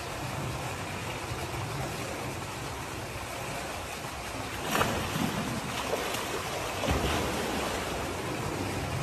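Pool water sloshing and splashing as a hippopotamus wades in, with louder splashes about five and seven seconds in.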